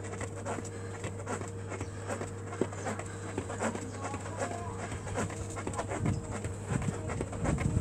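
Quick, irregular patter of feet landing on a workout mat, with hard breathing, from a man doing mountain climbers.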